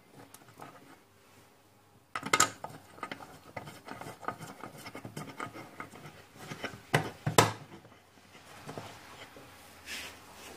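Scattered scraping, rubbing and clinking noises of things being handled, starting about two seconds in, with two sharper knocks a little past the middle.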